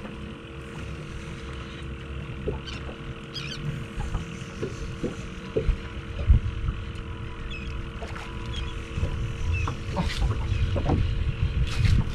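Wind buffeting the microphone and water slapping a small boat's hull, over a faint steady hum, with scattered small clicks and knocks.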